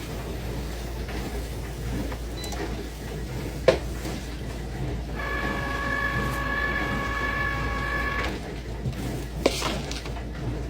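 Cricut cutting machine at work: a steady mechanical whirr with a low hum. A motor whine in several tones holds from about five to eight seconds in. Two sharp clicks come, near four seconds in and again about nine and a half seconds in.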